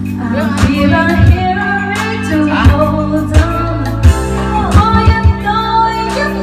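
Karaoke backing track of a pop song with a steady drum beat, played through a videoke machine's speaker, with a woman singing along.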